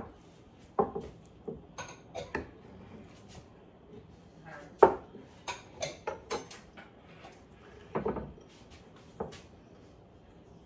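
Ceramic bowls and a metal spoon clinking and knocking against a square nonstick pan and a wooden cutting board as ingredients are scraped in and the bowls and spoon are set down: a scattered string of short clinks, the loudest about five seconds in and another cluster around eight seconds.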